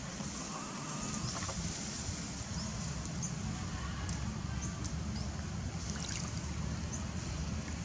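A long-tailed macaque swimming in a muddy pool, with gentle water sloshing. A few splashes come about six seconds in as it stands up in the water. A steady low rumble runs underneath.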